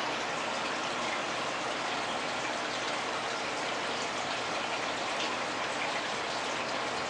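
Aquarium aeration: a steady stream of air bubbles rising and breaking at the water surface, heard as an even bubbling, splashing hiss.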